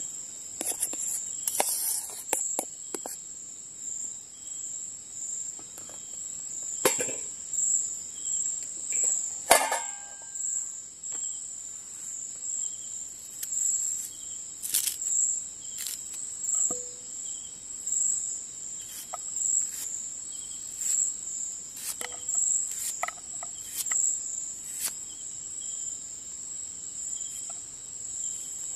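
Crickets chirping in a steady, high, pulsing rhythm. A few scattered clicks and knocks come from cookware and food being handled, the loudest a short ringing metal clink about ten seconds in.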